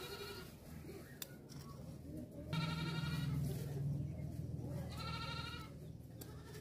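Goat bleating: three short quavering bleats, about two and a half seconds apart.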